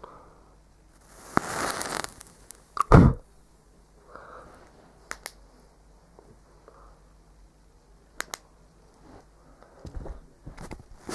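Handling noises around a hand-held laser module: a short burst of hiss about a second in, a heavy thump about three seconds in, then a few light clicks and rustles.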